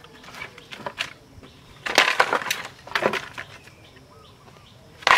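Split bamboo halves knocking and clattering together as they are set down on a pile. There are several knocks: the loudest about two seconds in, another about a second later, and one more at the very end.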